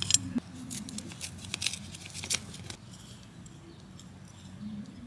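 Hand trowel digging into garden soil: a quick run of crisp scrapes and crunches that stops about two and a half seconds in, after which it goes softer.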